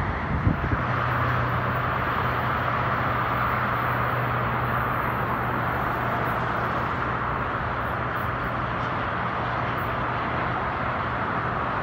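Steady outdoor hum of road traffic, with a low steady drone underneath. There are a few low thumps in the first second.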